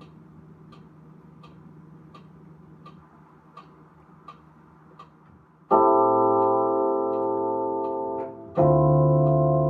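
Music: soft, even ticks about one and a half times a second, then about six seconds in a loud sustained keyboard chord, followed by a second held chord near the end.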